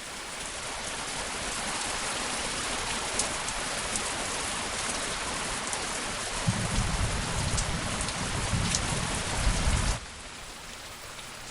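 Heavy rain pattering steadily, joined by a low rumble of thunder in the second half. Near the end the rain cuts down suddenly to a softer shower.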